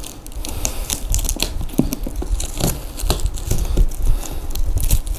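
Scissors picking and cutting at the plastic wrap and tape on a shipping box, the plastic crinkling and tearing in short, irregular crackles.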